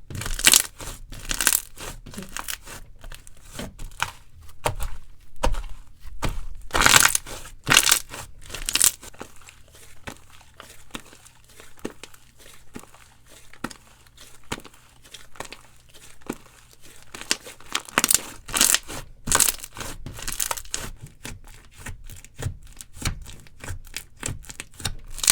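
Slime being squeezed, pressed and stretched by hand, giving a run of irregular sticky clicks and pops with louder clusters now and then.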